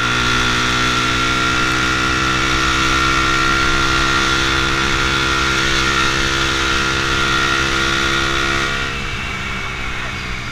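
Honda CBR150R single-cylinder motorcycle engine running at a steady cruise, with wind and road rush. The engine note drops and eases off about nine seconds in as the bike slows.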